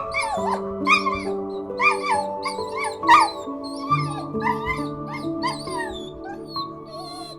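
Soft piano music with a run of short, high, pitch-bending animal calls over it, about two a second, thinning out near the end.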